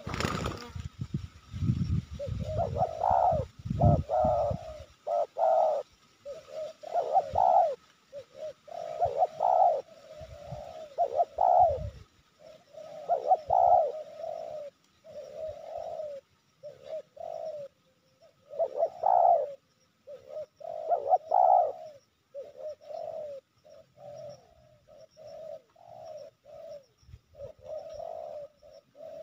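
Spotted doves cooing over and over in short phrases: the territorial challenge coo of a wild male drawn in by decoys. A brief flurry of wingbeats right at the start, and a low rumbling noise in the first few seconds.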